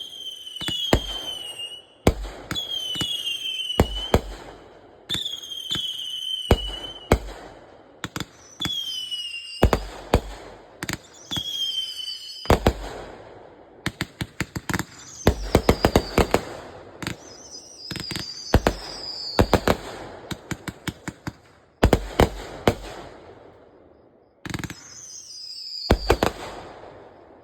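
Fireworks display: a run of whistling shells, each a whistle falling in pitch, followed by sharp bangs and crackling bursts, repeating every second or two. The last burst comes shortly before the end.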